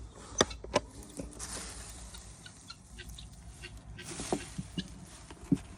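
Rummaging while searching a nest for eggs: scattered sharp knocks and clicks with two short stretches of rustling.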